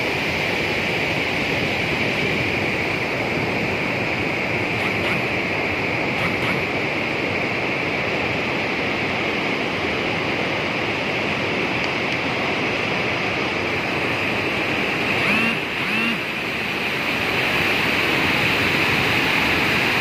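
Steady rush of white water from a river pouring over a rocky waterfall lip. About three-quarters through, two brief rising calls sound over it, and the water grows a little louder near the end.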